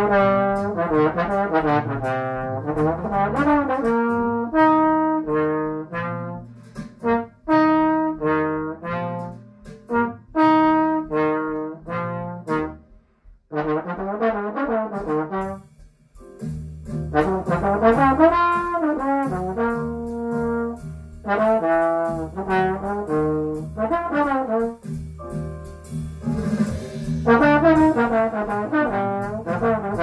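Slide trombone playing a slow jazz ballad melody in long phrases, with two short breaks about 13 and 16 seconds in.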